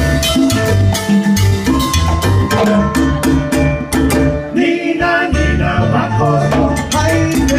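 Live salsa band playing, with a steady beat of congas and timbales over a bass pulse and held instrumental notes; a singer's voice comes in about five seconds in.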